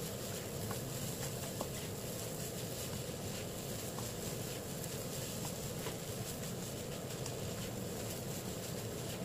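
Egg fried rice being stir-fried in a nonstick wok: a steady sizzle under the soft scraping of a spatula turning the rice, with occasional faint ticks.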